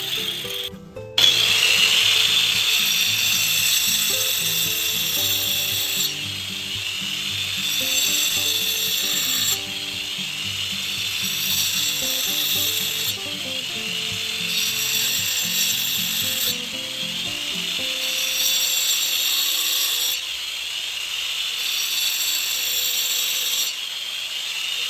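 Background music: a stepped low melody over a high rattling, buzzing layer that changes every three and a half seconds or so. It cuts out briefly about a second in, then resumes.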